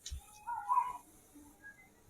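A cat meows once, a short call that bends up and down in pitch about half a second in. A soft thump comes just before it.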